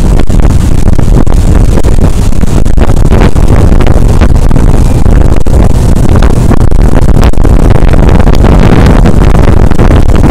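Speedboat running at speed, its engine and rushing water mixed under heavy, continuous wind buffeting on the microphone.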